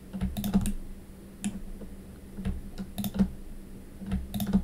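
Computer mouse and keyboard clicks in small quick groups, about once a second, as mesh vertices are clicked and selected one at a time.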